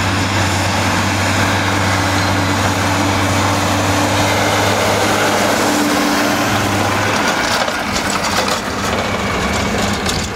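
Tractor pulling a Schuitemaker self-loading forage wagon through cut grass, its engine running steadily as it drives past close by. The low engine hum changes about seven seconds in as the rig goes by and moves away.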